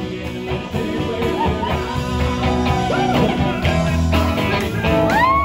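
Live band playing rock and roll, with electric guitar and singing; a long held note rises near the end.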